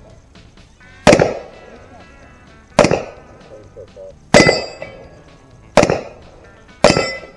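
Five gunshots about one and a half seconds apart, each with a ringing clang from steel plate targets being hit.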